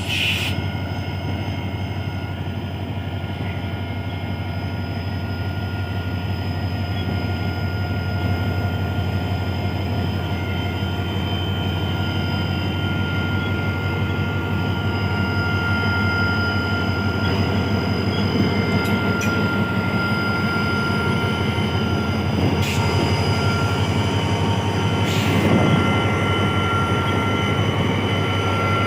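HGMU-30 diesel-electric locomotive running steadily as it pulls a goods train away, a continuous drone with steady whining tones that slowly grows a little louder. Two sharp clicks come about three-quarters of the way through.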